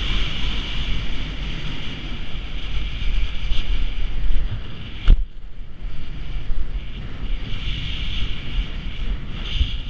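Wind buffeting a body-mounted camera's microphone at speed, over the steady scrape of edges sliding on packed snow. A single sharp knock about five seconds in.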